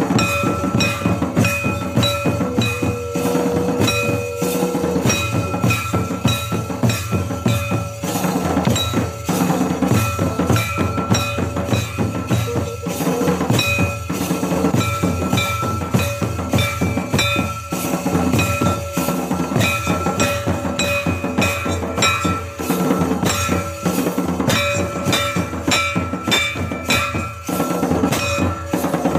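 Santali folk dance drumming: drums beating a steady, driving rhythm throughout, with a high held tone sounding over them.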